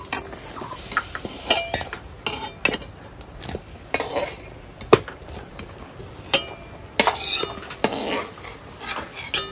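Steel spatula scooping boiled soya chunks out of a steel kadai into a steel bowl, knocking and scraping against the metal: irregular clinks and scrapes scattered through, over a low background of wet noise.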